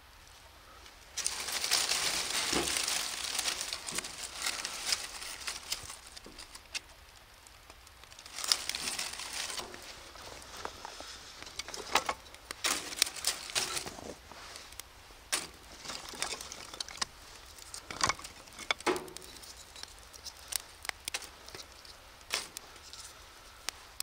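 Dry fallen leaves and twigs, lit with rolled kitchen paper, catching fire in a metal fire pit: crackling and rustling with many sharp snaps. It starts suddenly about a second in and flares up again about a third of the way through.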